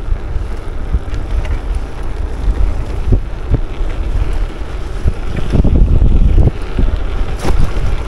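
Wind buffeting the microphone of a moving bicycle rider, a steady low rumble that swells about five and a half seconds in. A few sharp knocks come around three seconds in and again near the end.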